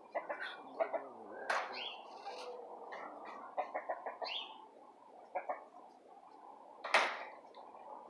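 Chickens clucking and calling in short, scattered notes, with one louder, harsher sound about seven seconds in.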